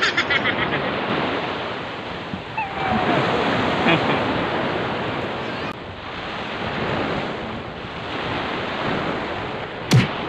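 Small waves breaking and washing up on a sandy shore, the surf swelling and fading every few seconds, with wind buffeting the microphone. A single sharp knock sounds near the end.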